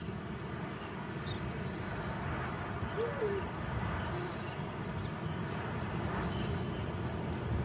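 Steady high-pitched chorus of insects, cricket-like, over a faint low rumble of open-country ambience.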